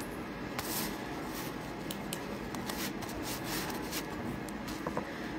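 Light, irregular taps and rubs of fingers handling a smartphone close to its microphone, over a steady room hum.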